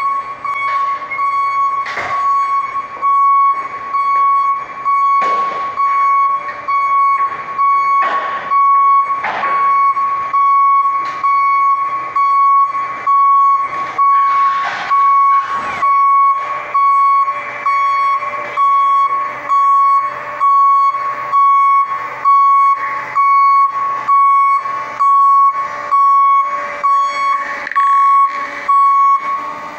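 Raymond forklift's reverse warning alarm beeping about once a second as the truck backs up, a single high steady tone.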